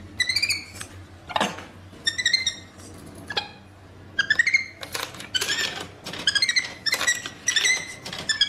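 Capuchin monkey giving short, high-pitched chirping squeaks in bursts, busiest in the second half, with a few sharp clicks at a vending machine's coin slot.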